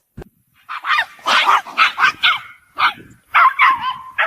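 A dog yipping and whining in a run of short high-pitched calls, ending on a longer drawn-out whine.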